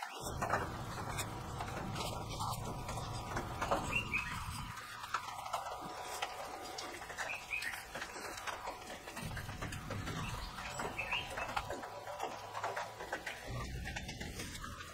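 Cloth rag rubbing and wiping a copper burner tube and its brass nuts: soft scrapes and small clicks, with a few short high chirps scattered through.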